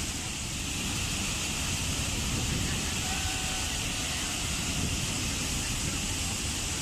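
Steady rushing of a waterfall, a low rumble under a constant higher hiss.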